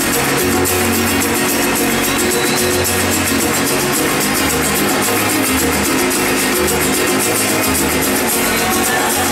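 Live pop concert music from a band playing through an arena sound system, with a bass line moving between notes, heard from the audience.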